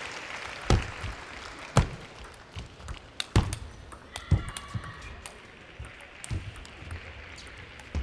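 Table tennis rally: the celluloid ball clicking off the players' rubber-faced paddles and bouncing on the table. It makes a run of sharp ticks, the loudest about a second apart with fainter ones in between.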